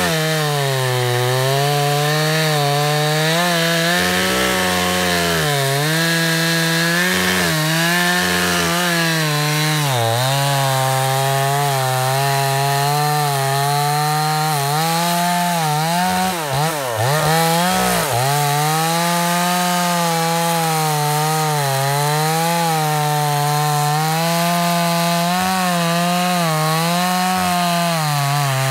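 Buffalo Sportsman Series 52cc two-stroke chainsaw running at full throttle while cutting into a tree trunk, its engine pitch wavering and sagging as the chain bites under load. A little past halfway the engine speed drops sharply and picks up again.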